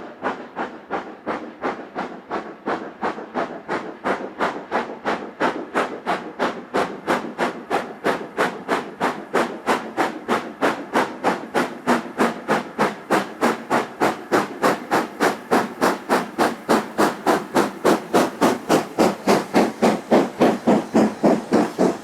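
Steam locomotive working hard, its exhaust chuffing in sharp regular beats of about two to three a second that quicken slightly and grow louder.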